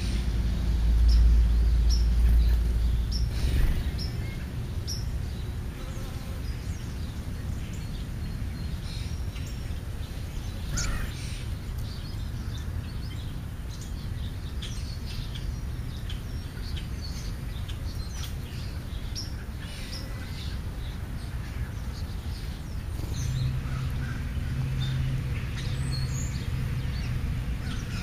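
Small birds chirping in short, scattered calls, over a low rumble of passing traffic in the first few seconds. A low steady hum joins near the end.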